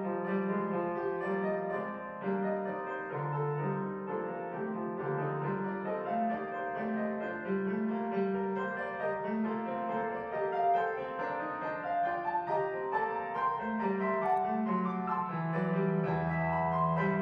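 Background piano music: a continuous, flowing stream of notes.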